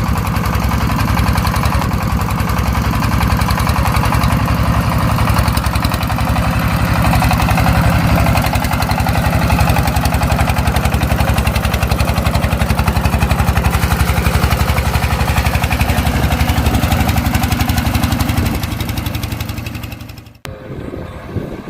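Tractor engine running steadily with a fast, even chug, fading near the end and cutting off abruptly about twenty seconds in, after which a quieter rushing noise remains.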